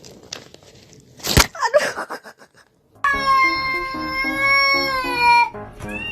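A cat's long, drawn-out meow held at a steady pitch over background music, after a sharp knock about a second and a half in. A shorter rising-and-falling meow comes near the end.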